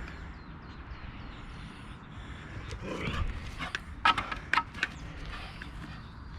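A few short, sharp animal calls in quick succession about four seconds in, after a rising rougher sound just before them.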